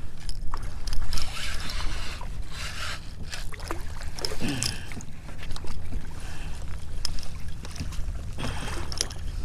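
A hooked red drum (redfish) splashing at the water's surface as it is fought on a rod and line beside a kayak, in bursts of splashing, the heaviest in the first few seconds and again around the middle, over a steady low rumble.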